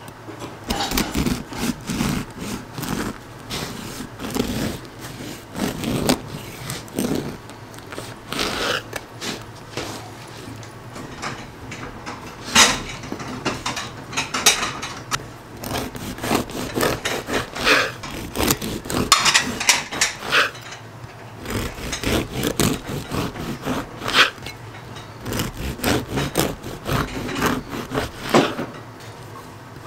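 Irregular scraping and rubbing strokes of kitchen work on a wooden surface, coming in short uneven bursts with pauses between.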